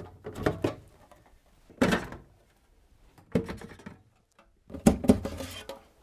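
Clear plastic door bins being lifted out of a fridge door, knocking and rattling against it in four short bursts of clatter.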